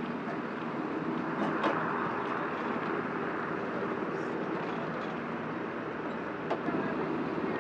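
Pickup tow truck's engine running steadily as it tows a drone aircraft along the runway, with a couple of faint clicks.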